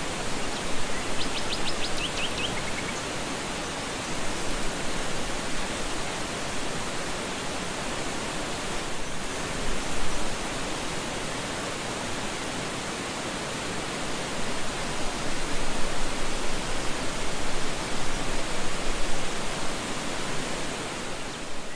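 Steady rushing of water from a tall waterfall, an even hiss-like sound that grows a little louder in the second half. A bird gives a short, quick trill about a second in.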